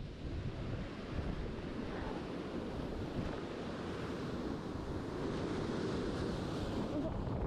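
Sea surf washing against a rocky shore, with wind buffeting the microphone; the wash swells up from about four seconds in.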